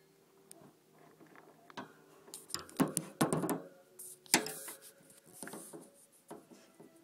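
Close-up clicking and crackling from a pet hamster, irregular and loudest in a cluster of sharp clicks near the middle.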